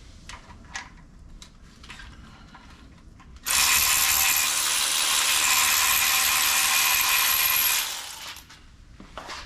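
Ratchet wrench clicking rapidly and steadily for about four seconds, after a few light taps and clicks of parts being handled.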